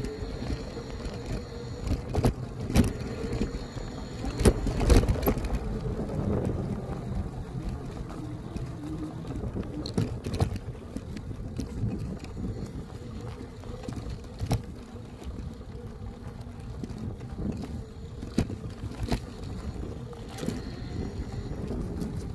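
Electric bike ridden over rough off-road ground: a steady low rumble with frequent sharp knocks and rattles from bumps, loudest a few seconds in, over a faint steady motor whine.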